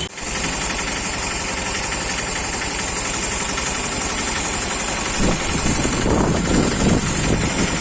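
An engine running steadily at idle, with a fast, even pulsing.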